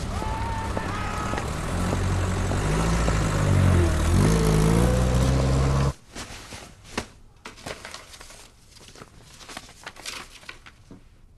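A vehicle engine runs loudly, its pitch dipping and then rising as it revs, and cuts off suddenly about halfway through. Quiet paper rustling and small clicks of handling follow.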